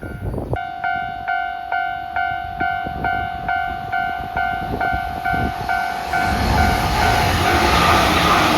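Level crossing warning bell ringing steadily at about three strokes a second. From about six seconds in, the running noise of a Shonan-Shinjuku Line rapid electric train coming through at about 107 km/h rises over the bell and becomes the loudest sound.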